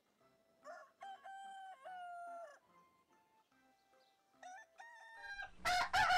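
Roosters crowing cock-a-doodle-doo three times: one crow about a second in, a fainter one just after four seconds, and a louder crow starting near the end.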